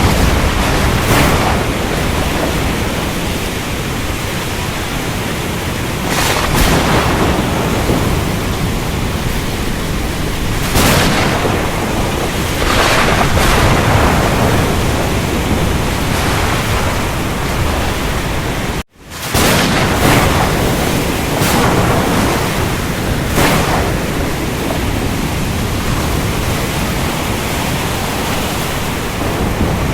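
Storm over the ocean: rain and surf as a dense, steady wash of noise, swelling every few seconds with crashes of thunder or breaking waves. The sound cuts out for a split second about two-thirds of the way through.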